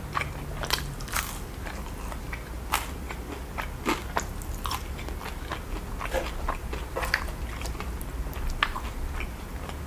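Close-miked chewing of crinkle-cut fries covered in cheese sauce: wet mouth smacks and sharp clicks at an irregular pace.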